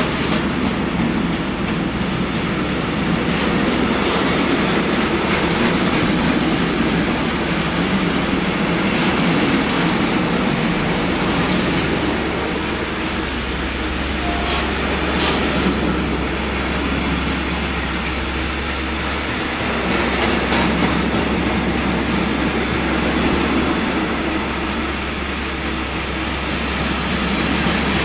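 Container freight train passing at speed: a steady, loud rolling rumble of the wagons, with occasional sharp wheel clicks.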